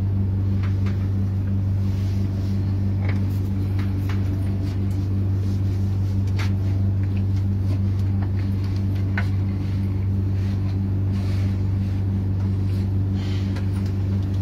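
Steady low machine hum holding one pitch with a couple of higher overtones, with a few faint clicks and rustles over it.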